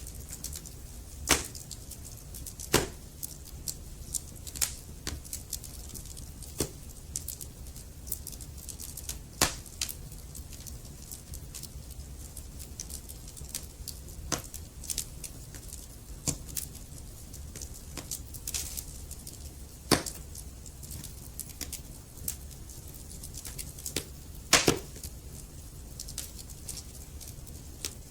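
Logs burning in a wood fireplace, crackling with irregular sharp pops every second or so over a low steady rumble. The loudest pops come about a second in, near three seconds and near the end.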